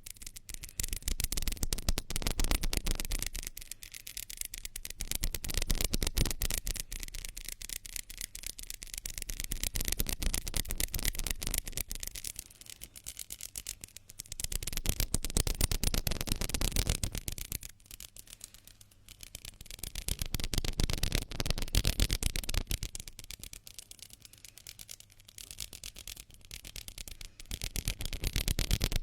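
Hands rubbing together close to the microphone in quick, dense strokes, swelling louder and easing off every few seconds.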